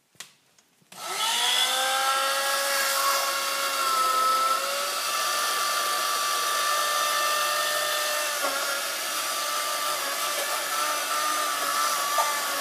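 Electric hand blender starting about a second in, its motor whine rising as it spins up, then running steadily with its blade down in a bowl of thick cake batter.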